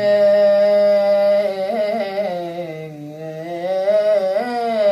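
A singer holding one long drawn-out note in Arabic song style, ornamented with quick wavers about two seconds in, sinking lower around three seconds and climbing back near the end.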